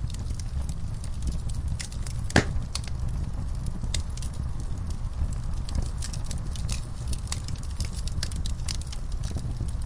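Crackling fire: a steady low rumble of flames under irregular small crackles, with one louder pop about two and a half seconds in.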